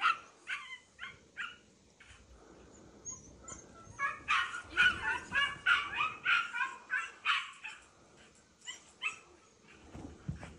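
Dog whining and yipping in short high-pitched calls: a few at the start, then a quick run of them from about four seconds in, tailing off into scattered yips.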